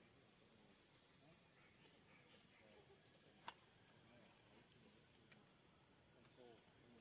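Faint, steady high-pitched insect chorus, with a single sharp click about halfway through.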